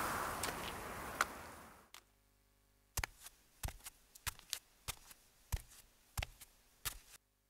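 Footsteps crunching on dry fallen leaves, which stop abruptly about two seconds in. Then footsteps on a hard floor: short sharp steps about every two-thirds of a second.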